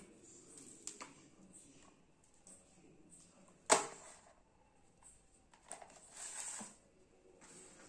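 Small gadgets and their packaging being handled: faint taps and clicks, one sharp click about three and a half seconds in, and a brief rustle near the end.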